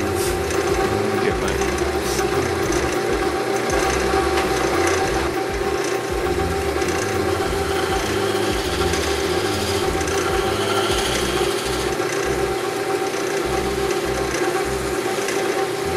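Wood lathe motor running steadily, spinning a crab apple bud vase, with a constant hum throughout.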